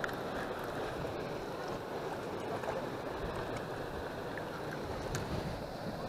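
Steady wash of choppy river water, with wind rumbling on the microphone.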